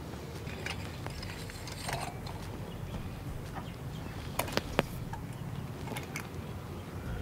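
Stainless steel sevai press being handled and loaded with rice dough: scattered light clicks and taps, with two sharp clicks close together a little over four and a half seconds in, over a low steady rumble.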